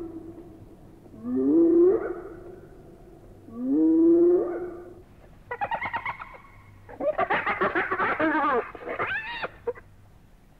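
Spotted hyena whooping: two separate calls, each a low hoot that glides upward, about two seconds apart. Then a different run of quick, wavering calls for about four seconds.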